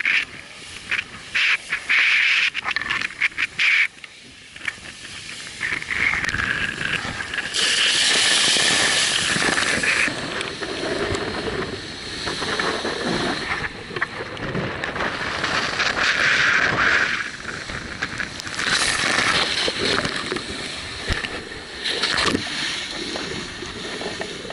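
Wind and rushing water on a racing yacht under way in rough open sea: gusting wind buffets the microphone while water hisses past the hull, with spray hitting the camera. The rush swells and eases in surges, with a run of rapid buffeting knocks in the first few seconds.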